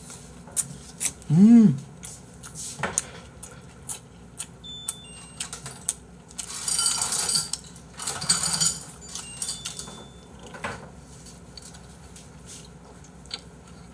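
Dishware being handled at a table: sharp clicks and clinks of a ceramic plate, then two stretches of rustling near the middle. A man's short wordless exclamation, rising and falling in pitch, about one and a half seconds in is the loudest sound.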